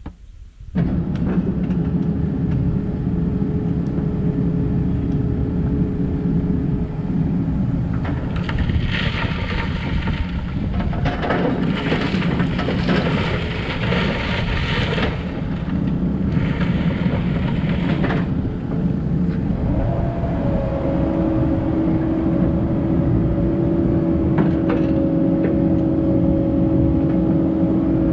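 Cat 308 excavator's diesel engine running steadily under work. There are stretches of harsher hissing and scraping noise between about 8 and 18 seconds, and the engine note steps up in pitch around 20 seconds.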